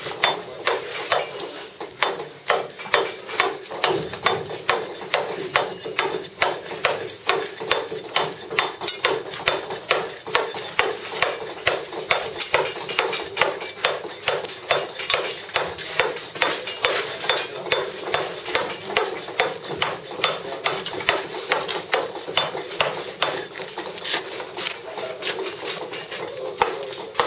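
Round mallet striking a claw tool in a steady rhythm of quick, light blows, the claw's teeth chipping away the waste of a chamfer on a block of Bath stone in thin layers.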